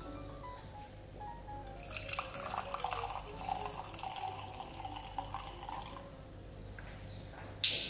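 Juices bubbling and spitting inside a lidded stainless steel pot as salmon and vegetables steam without added water, a busy patch of small pops from about two seconds in until about six seconds in. Quiet background music plays throughout, and there is a short sharp sound near the end.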